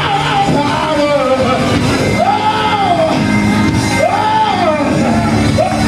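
Church worship music: a voice singing or chanting long, arching held notes, each about a second, over steady held instrumental chords, echoing in the sanctuary.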